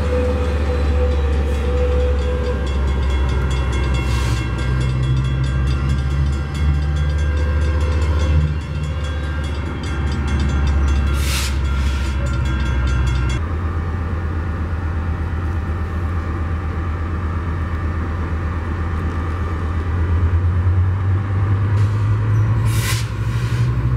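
Metrolink commuter train's diesel locomotive running steadily as the train moves through the station, a low engine drone with whining overtones. About halfway through the drone changes abruptly to a different steady diesel engine sound, and a brief hiss comes near the end.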